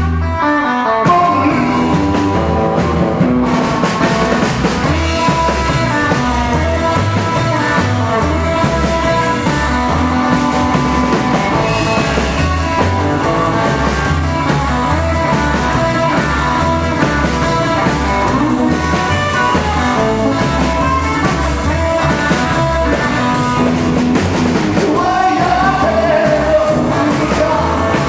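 Rockabilly band playing an up-tempo rock-and-roll song, with guitar and singing over a steady beat.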